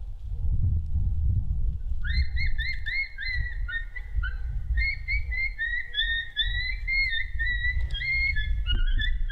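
Predator call sounding a run of short, whining, pitched yelps, about three to four a second, starting about two seconds in and later overlapping at two pitches, over a steady low wind rumble on the microphone.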